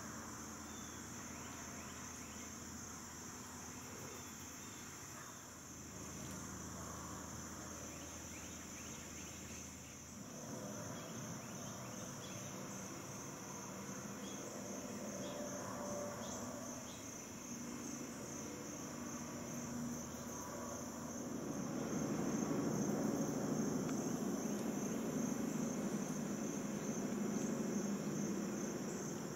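Steady outdoor insect chorus, a high, finely pulsing trill. A low rustling noise grows louder over the second half.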